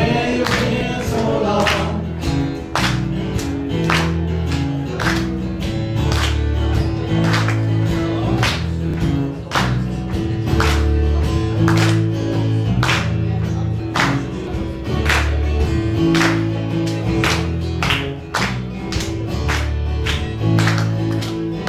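Live acoustic band: a woman singing over two strummed acoustic guitars, with the audience clapping along on the beat.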